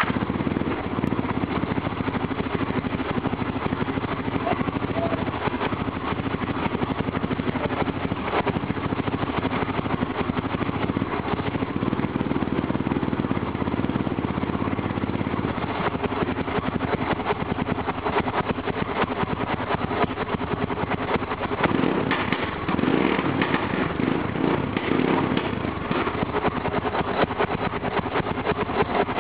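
1986 Suzuki motorcycle engine running just after catching on its first start after restoration. It runs steadily, and its revs rise and fall a few times about two thirds of the way through.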